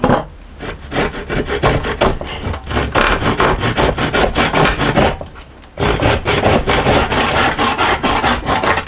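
Hand saw cutting through a wooden hammer handle, fast back-and-forth rasping strokes that shorten the new handle to length. The strokes pause briefly about five seconds in, then carry on.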